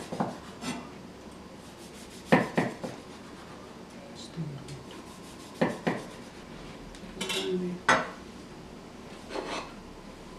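Kitchen knife cutting through a baked poppy seed strudel on a ceramic plate: the blade scraping through the crust and knocking sharply against the plate several times, a couple of seconds apart.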